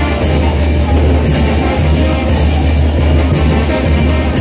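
Mexican brass band (banda) playing chinelo dance music: a steady beat with cymbal clashes about twice a second over a strong, continuous bass line.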